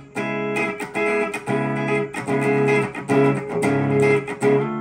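Electric guitar on a clean tone, played through a Zoom G5n multi-effects processor: a run of chords strummed in a steady rhythm, each ringing briefly before the next.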